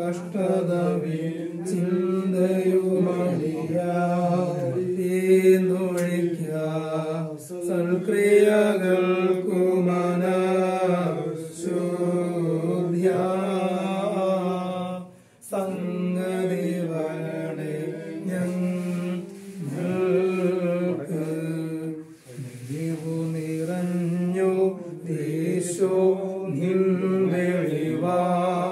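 Voices singing a slow Malayalam Christian hymn in long, held phrases, with brief pauses between lines.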